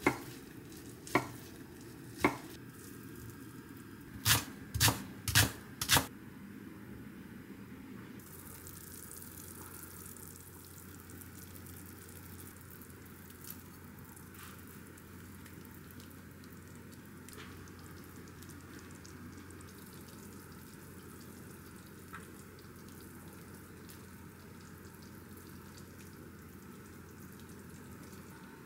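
A chef's knife chopping through a folded thin egg omelette onto an end-grain wooden cutting board: seven sharp chops in the first six seconds, the last four close together. After that, a steady faint hiss of beef-rib broth simmering in a pot.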